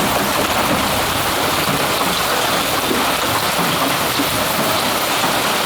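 Hailstorm: hail and rain pelting down in a loud, steady hiss that does not let up.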